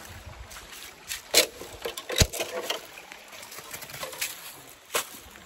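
Scattered knocks, snaps and rustling while walking along a bushy path, with sharp knocks about one and a half and two and a quarter seconds in and another near the end. Faint voices are in the background.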